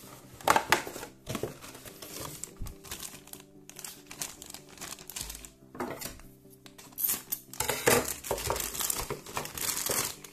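A cardboard Happy Meal box being handled and opened, then the thin plastic toy bag crinkling as it is handled and pulled open, in irregular rustling bursts that are densest in the last few seconds. Background music plays underneath.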